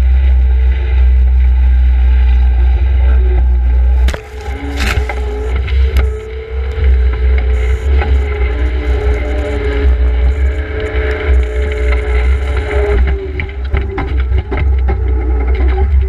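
Case skid steer loader's engine running steadily. From about four seconds in, uneven knocks and scraping join it as the machine works the dirt.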